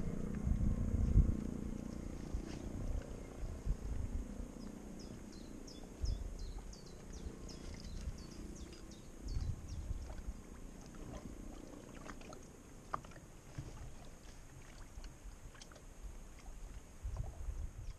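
Wind buffeting the microphone in gusts at the waterside, with a run of short high chirps between about four and ten seconds in.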